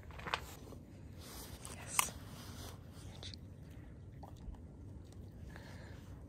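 A dog biting into a raw chicken egg, the shell crunching, with two sharp clicks, one about a third of a second in and a louder one about two seconds in.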